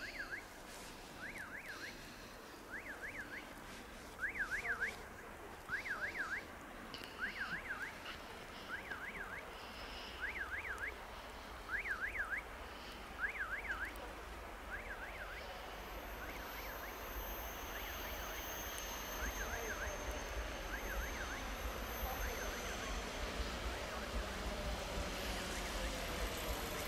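Level-crossing warning signal: a warbling electronic tone repeating about every second and a half, growing fainter in the second half. Under it, an approaching ER2 electric train's rumble and hiss build up, with a thin high whine.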